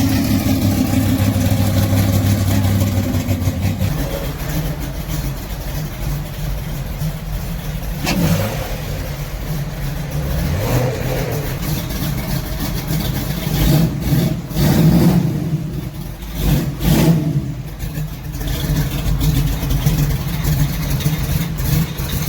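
Car engines running at low speed, with an engine note rising about a third of the way in and several louder revs about two thirds through.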